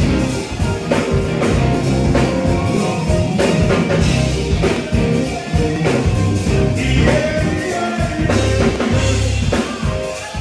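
Live band playing: keyboard and drums keeping a steady beat, with some singing.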